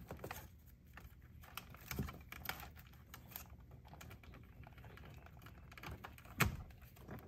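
Light plastic clicks and rustling as a Power Probe PPDCM80 amp clamp is handled and fitted around door wiring, with one sharper click about six seconds in.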